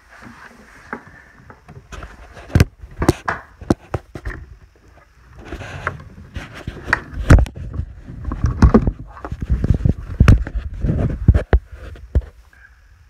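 Irregular knocks, scrapes and low rumbling handling noise from a phone rubbing and bumping against furniture as it is pushed under a bed, busiest in the second half.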